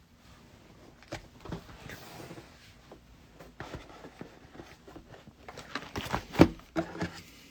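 Trading cards and their packaging being handled on a table: soft rustling and small clicks and taps, growing busier, with a few sharper taps about six seconds in.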